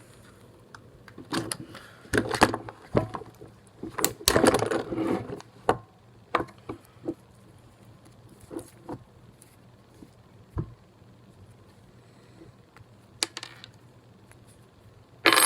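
Hard plastic blister packaging of a padlock set crackling and clicking as the keys are pried off it by hand. It comes in irregular bursts, the loudest about four seconds in, then scattered single clicks and taps.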